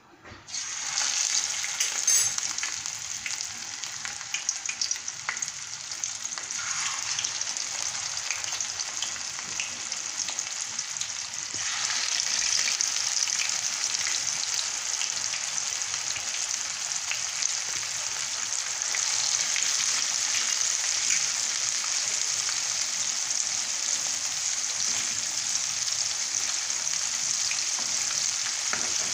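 Flour-dredged sardines shallow-frying in hot oil in a pan: a dense, crackling sizzle that starts abruptly about half a second in as the fish go into the oil. It grows louder in two steps, about twelve seconds in and again near two-thirds of the way through.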